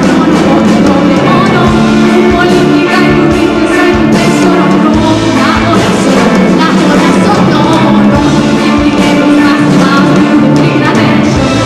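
Live band playing loudly on stage: drum kit and amplified instruments in a rock arrangement of a hip-hop song.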